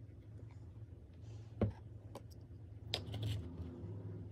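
Faint kitchen handling sounds: a sharp knock about one and a half seconds in and a few light clicks, from a metal spoon and bottle against a plastic mixing bowl as fish sauce goes in, over a low steady hum.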